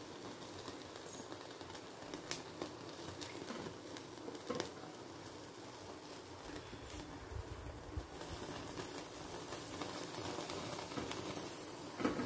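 Gas stove burner hissing steadily under a wire grill stand, with a few faint ticks and crackles from paneer skewers grilling over the open flame. Near the end there is a brief knock as the skewers are handled and turned.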